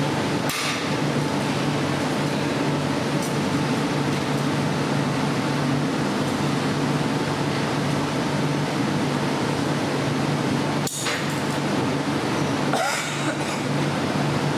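Steady roar and low hum of glassblowing-studio equipment, with a few sharp clinks of glass cane rods on the pickup plate: once about half a second in, again near eleven seconds and around thirteen seconds.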